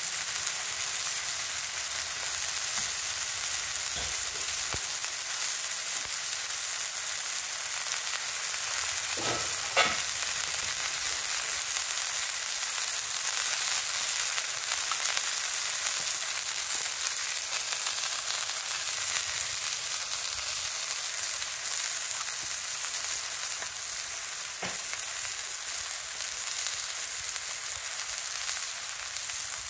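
Food sizzling steadily in the frying pan of a Trangia spirit-stove cookset, with a few brief clicks and a short louder moment about ten seconds in.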